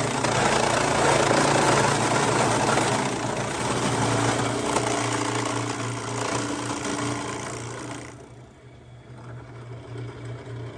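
Electric drill running, boring a hole through PVC pipe; it stops about eight seconds in.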